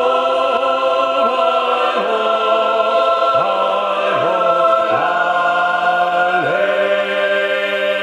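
Mixed choir of men's and women's voices singing slow, sustained chords, the parts moving together to a new held note every second or so.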